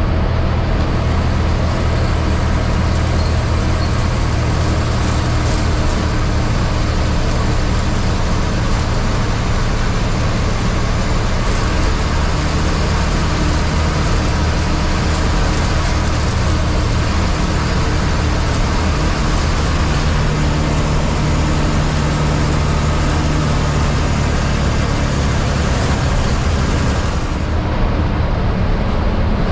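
MSRTC state transport bus on the move, its diesel engine humming steadily under loud road and tyre noise, heard from inside the bus. About twelve seconds in, the engine note steps up a little higher.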